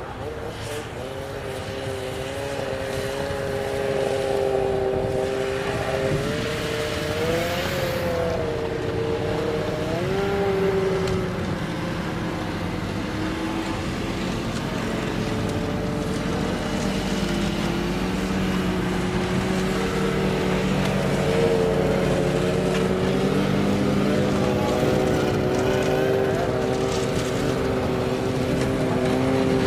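Many snowmobile engines running together as a column of sleds passes. The sound grows louder over the first few seconds, and the engine pitches rise and fall about a quarter to a third of the way in.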